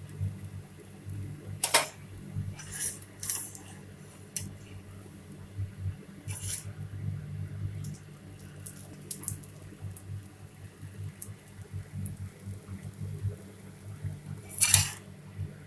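Dosa cooking on a pan, with a metal spatula scraping and tapping against it several times. The sharpest scrapes come about a second and a half in and near the end, over a steady low hum.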